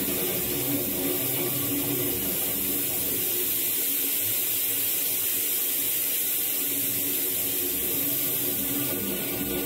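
Experimental electronic noise music from frakMSP software synthesis: a dense, steady, hissing drone texture over a low repeating pulse that fades out in the middle and returns near the end.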